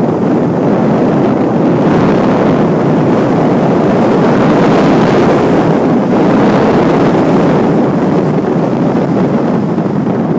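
Wind rushing over a phone's microphone held at the open window of a moving car: a loud, steady rush that blots out everything else.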